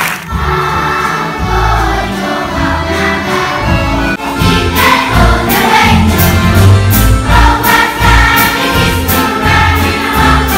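Children's choir singing with a live instrumental ensemble, deep bass notes under the voices.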